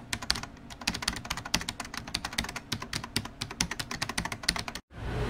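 Rapid keyboard typing clicks, several a second and uneven, keeping time with text appearing letter by letter on screen; they stop abruptly near the end.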